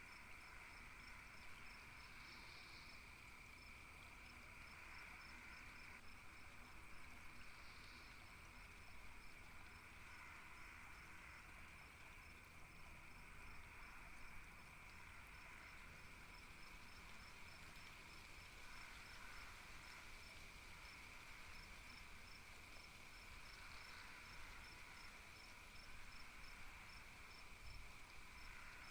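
Faint evening insect chorus: a cricket chirping in a steady, quick rhythm over a constant high drone of other insects.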